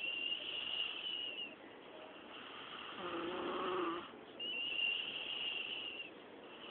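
A young woman snoring in her sleep. A high whistling snore comes first, then a lower-pitched snore about three seconds in, then another high whistle.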